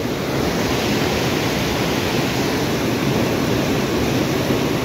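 A river rushing steadily.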